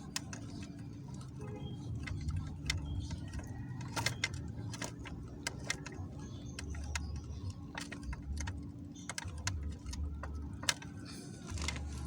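Irregular small metallic clicks and clinks, like parts or tools being handled, over a low steady hum.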